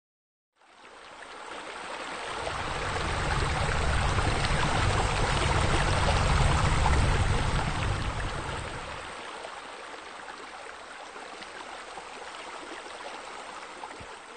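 A rushing noise that fades in, swells with a deep rumble for several seconds, then drops to a quieter, thinner hiss before fading out.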